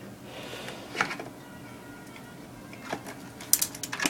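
A few sharp mechanical clicks: one about a second in, then a quick run of clicks and rattles near the end.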